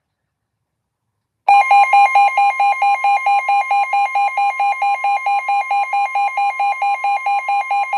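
Weather-radio warning alarm: a steady high tone starts about a second and a half in, with a loud beeping pulsed over it about four times a second. It is the alert that signals a warning broadcast, here a tornado warning.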